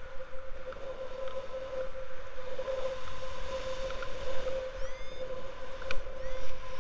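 Wind rushing over the camera microphone of a paraglider in flight, with a steady whistling tone running through it. A couple of brief rising chirps sound near the end, with a sharp click just before the second.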